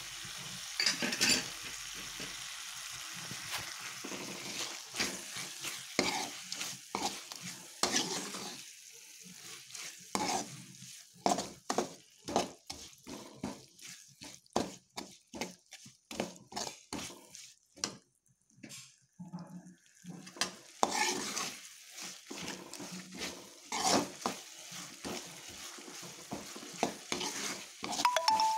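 Steel ladle scraping and clacking against a pan as a thick masala is stirred, over a light sizzle of frying. The strokes come quickly and evenly, about two a second, through the middle.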